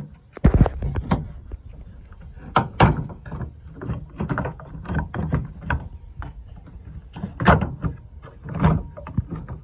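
Plastic tailgate handle housing on a 2007 Chevrolet Silverado being pulled and popped out of the tailgate: a string of irregular clacks and knocks of plastic against metal. The sharpest come about half a second in and again near the end.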